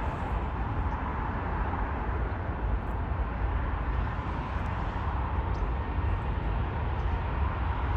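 Jet airliner engines heard steadily, a deep rumble with a faint high whine held through it.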